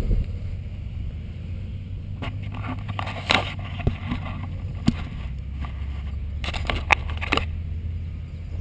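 Steady low wind rumble on the microphone, with a few scattered clicks and rustles from handling the flight battery and the foam model jet.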